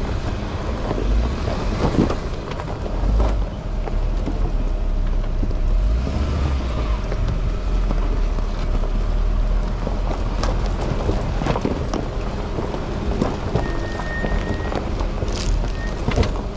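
Off-road vehicle engine running at low speed with scattered knocks and rattles, with music in the background.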